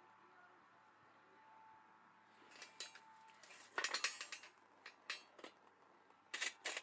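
Hard objects clinking and knocking together in irregular clusters of short, sharp clicks, the loudest about four seconds in and again just before the end.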